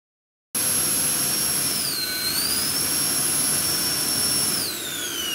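JetFan 110 electric ducted fan with a 780KV motor on 14S, running at full throttle and drawing about 130 amps: a loud rushing blast with a high whine, cutting in abruptly about half a second in. The whine dips briefly about two seconds in and recovers, then falls steadily near the end as the fan spools down.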